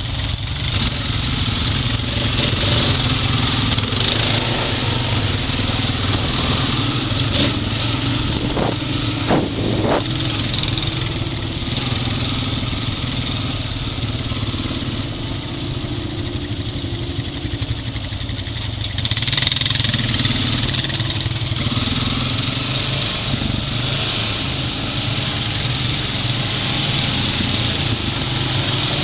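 Honda Rancher 420 ATV engine running steadily while riding along a dirt trail, with a few sharp knocks over bumps between about four and ten seconds in.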